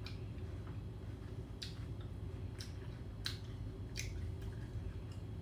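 Close-up chewing of raw jicama: crisp crunches at irregular intervals, about one a second, over a steady low hum.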